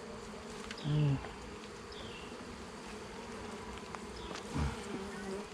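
Honey bees from an open hive buzzing in a steady low hum. Two brief louder sounds stand out, about a second in and near the end.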